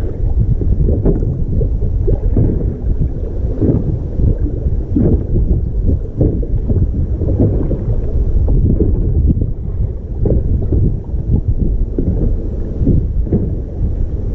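Strong wind buffeting the microphone: a loud, low, gusting rumble that rises and falls unevenly.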